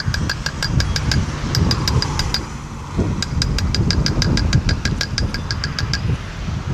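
Small generator engine running with a steady low rumble, over a rapid, even ticking of about eight ticks a second. The ticking pauses briefly a couple of seconds in, then resumes until near the end.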